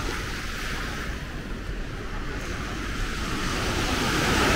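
Small sea waves breaking and washing up a sandy beach, the wash swelling louder near the end.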